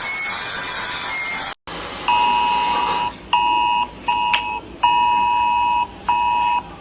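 Emergency alert attention signal: a two-tone electronic beep pulsing on and off in uneven beeps, starting about two seconds in after a brief break. Before it comes a hissing, noisy stretch, and a single click sounds near the middle of the beeping.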